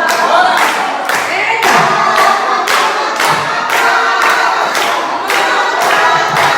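A group of people singing together while clapping a steady beat, about two claps a second.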